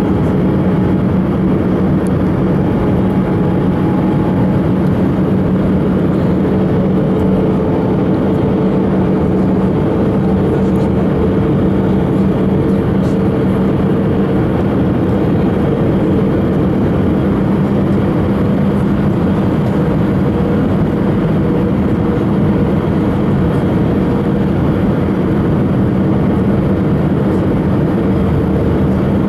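Airbus A319 cabin noise from a window seat over the wing on approach: the steady rush of the jet engines and airflow, with a low hum under it and a fainter higher tone that edges up slightly in pitch in the first half.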